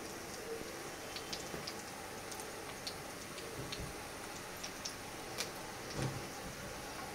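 Semolina and vegetable fritters shallow-frying in oil in a nonstick pan: a steady sizzle with scattered small pops and crackles. There is a single low knock about six seconds in.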